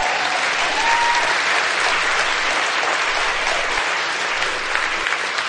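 Audience applauding steadily at the close of a talk.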